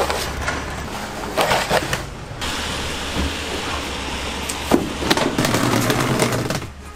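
Hard plastic knocks and clatter as stacked plastic cooler boxes and stacks of plastic stools are handled, lifted and set down. There are a few sharp bangs, the loudest about five seconds in.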